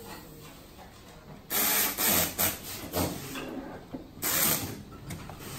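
Air-powered screwdriver on a coiled air hose driving the case-cover bolts into e-bike mid-drive motor housings, in four short hissing bursts of about half a second each.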